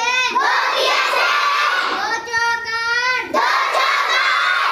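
A child singing in a high voice, holding long notes, with other children's voices mixed in.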